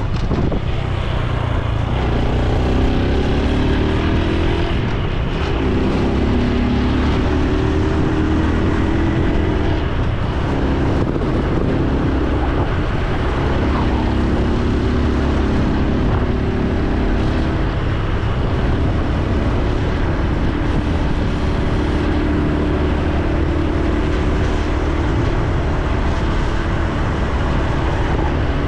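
Honda Super Cub C125's single-cylinder four-stroke engine and exhaust under way, its pitch climbing and dropping back several times through the gears, over a steady low wind rumble on the microphone.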